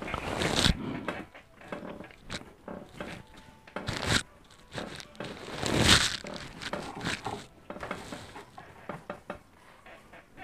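Irregular rustling and crinkling handling noise on a shirt-clipped microphone, with a few louder brief bursts under a second in, about four seconds in and about six seconds in; no music leaking from the earbuds is heard.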